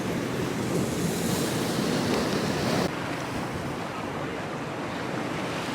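Ocean surf washing on a beach, with wind buffeting the microphone; the sound drops abruptly and gets quieter about halfway through.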